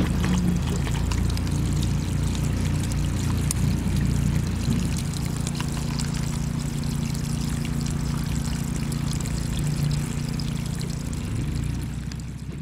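Well water gushing out of a 2-inch garden hose onto the ground, a steady pour over a low hum. It fades out at the very end.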